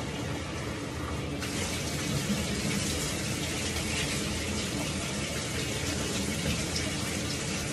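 Bathtub tap running steadily, with water poured from a plastic cup splashing over a dog's back; the rushing gets brighter about a second and a half in.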